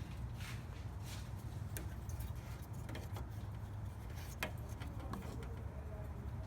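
2003 Mazda Miata NB's four-cylinder engine idling roughly at a standstill, a low steady drone with a few light clicks and rattles over it. The idle is unsteady and threatens to stall, which the owner puts down to a dirty idle air control valve.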